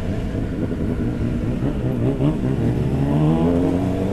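Motorcycle engine running at low revs, then accelerating with its pitch rising steadily from about three seconds in.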